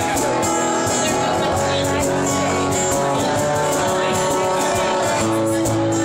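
Live acoustic band playing: two acoustic guitars strummed over a drum kit, with the cymbals keeping a steady beat.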